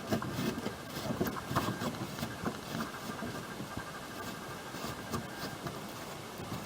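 Small irregular clicks, taps and scrapes of hands working a nut and bolt on a fibreglass battery box loose, with a metal spanner.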